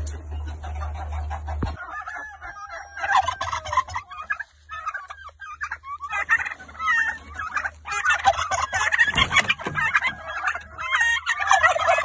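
Domestic turkey toms gobbling: rapid throaty calls in repeated bursts, starting about two seconds in. A low rumble underneath stops just before the gobbling begins.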